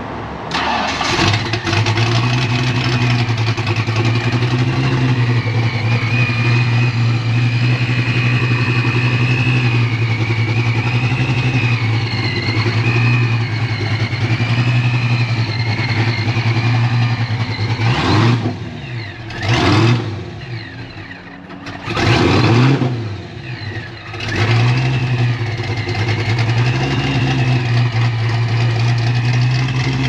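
A car engine starts about a second in and settles into a steady idle. About two-thirds of the way through, the throttle is blipped in three short revs before it drops back to idle.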